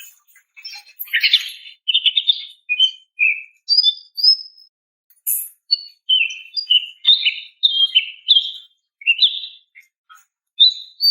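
Female greater green leafbird (cucak ijo) calling to a male: a quick run of short chirped and whistled notes, many falling in pitch, in phrases with brief pauses between them.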